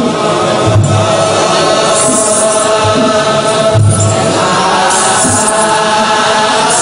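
Ethiopian Orthodox clergy chanting together in a slow, held unison, with a hissing shimmer about every three seconds and a few low thuds.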